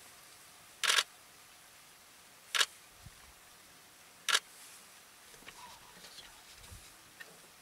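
Three camera shutter clicks, each short and sharp, spaced about one and a half seconds apart.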